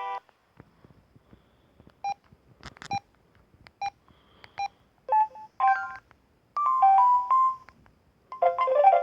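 Samsung SGH-C160 mobile phone: a ringtone melody cuts off right at the start, then come faint key clicks and four short single-pitch keypad beeps. From about five seconds in, short bursts of ringtone melody start and stop one after another, each lasting a second or less, as ringtones are previewed in turn.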